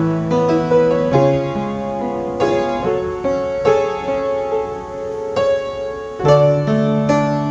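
Piano playing a slow sequence of sustained chords, a new chord struck every second or so.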